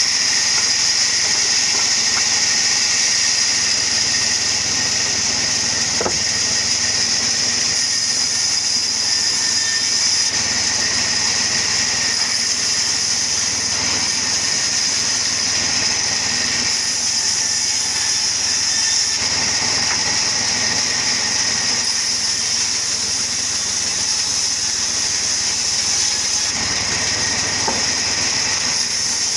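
Wood-cutting sawmill machine running steadily, with a constant high-pitched whine and a single click about six seconds in.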